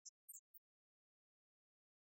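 Near silence, with a few faint, very short high-pitched ticks in the first half second.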